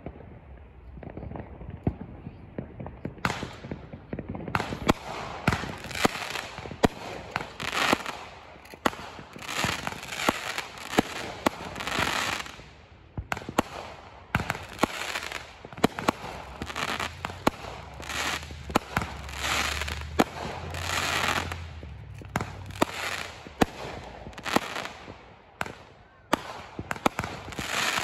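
Fireworks going off close by: a rapid string of sharp bangs from bursting aerial shells, with long stretches of dense crackling between them. The bangs and crackle thicken a few seconds in.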